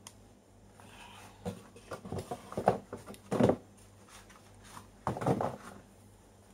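Paper and cardboard packaging rustling and crinkling as a laptop is lifted from its molded pulp tray and handled in its paper sleeve, in several short spells of handling noise, the loudest about three and a half seconds in.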